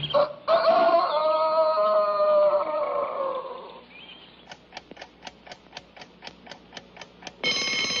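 A twin-bell wind-up alarm clock in a cartoon soundtrack: music slides down and fades, then the clock ticks about five times a second, and near the end its bell rings loudly.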